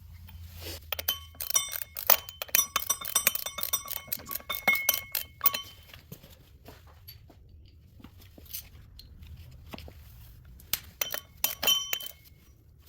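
Metallic clinks with short ringing as ARP flywheel bolts are handled and threaded in by hand against the flywheel: a dense run of clinks over the first few seconds, then scattered ones, and another cluster near the end.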